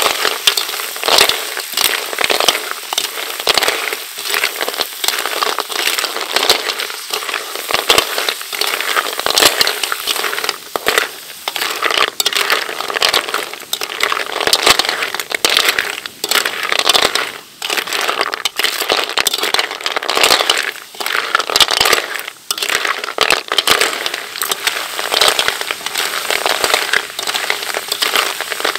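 Snails in their shells being stir-fried in a metal wok. A slotted metal ladle scrapes the pan and the shells clatter and knock against each other in quick irregular clicks over a steady sizzle.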